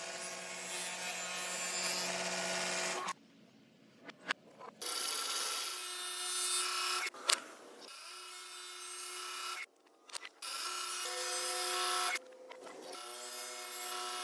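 A power tool working wood in runs of a few seconds. It gives a steady pitched hum over a hiss and stops briefly between runs. A few sharp clicks fall in the pauses, the loudest about seven seconds in.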